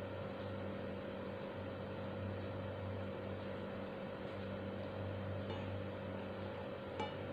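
Steady low electrical or mechanical hum over an even hiss, with a single faint click near the end.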